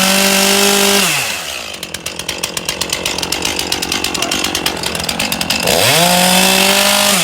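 Two-stroke petrol chainsaw revved to full throttle and held for about a second, dropping back to a pulsing idle, then revved and held high again near the end before falling back.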